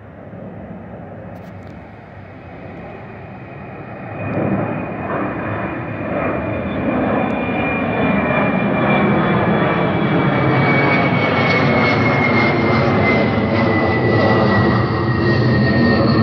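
Jet airliner flying low overhead: engine noise builds sharply about four seconds in and stays loud, with a high whine that slowly falls in pitch.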